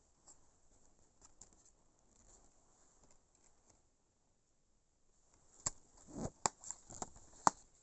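Clear plastic DVD cases and discs being handled: faint rustling at first, then a run of sharp plastic clicks and clacks over the last two seconds or so, the loudest near the end.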